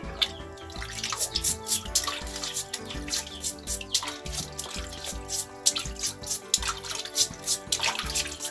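Freshwater mussel shells being scrubbed with a brush over a basin of water, with irregular scrubbing strokes, splashing and dripping, over background music.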